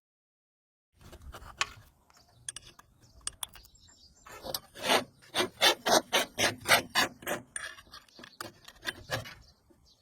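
Repeated scraping strokes starting about a second in, irregular at first, then a steady run of about three strokes a second through the middle before thinning out.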